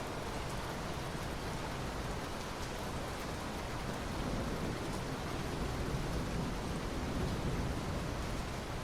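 Steady rain falling, an even hiss of drops. A low rumble swells slightly in the second half.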